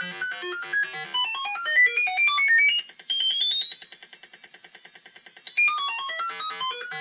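Homemade Arduino theremin playing a rapid string of short electronic notes through its own amplifier and speaker. Its pitch changes with the distance of a hand from the antenna. Midway the notes climb steadily higher for a few seconds, then drop back down.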